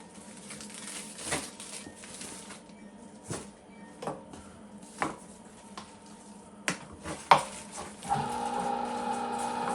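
Scattered clicks and clatter, then about eight seconds in a Cabela's Carnivore electric meat grinder switches on and runs with a steady hum.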